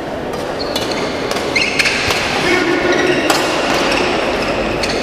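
Badminton rally: several sharp racquet hits on the shuttlecock and short high squeaks of court shoes on the floor, over a steady crowd murmur.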